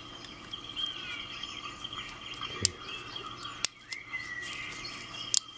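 Three sharp clicks of small parts being handled as the combination switches are fitted into a push-button trigger lock, over birds chirping in the background.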